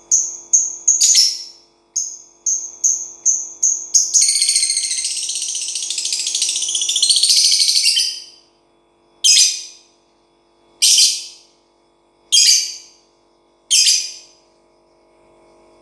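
Lovebird singing: two runs of quick, repeated high chirps, then a continuous chattering trill lasting about four seconds, then four single sharp calls about a second and a half apart.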